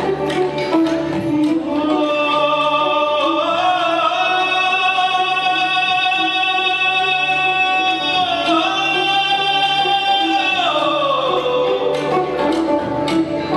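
Live fusion rock band playing, with a singer holding one long note that slides up in pitch twice and drops back near the end, over a steady low bass note and light percussion.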